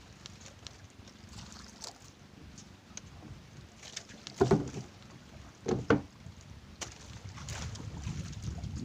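Small fishing boat rocking on the water with a low rumble of water against the hull, and two loud knocks, about four and a half and six seconds in.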